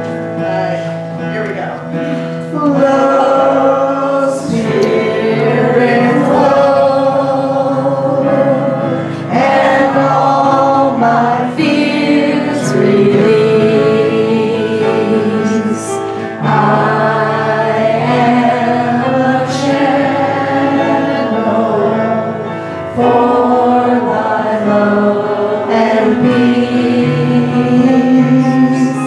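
A hymn sung to a Maori folk melody: a woman leads the singing into a microphone over electric piano chords, with the congregation singing along.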